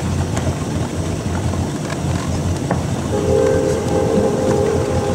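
Tow boat's engine running with a steady low rumble. About three seconds in, it grows a little louder and a steady hum joins it.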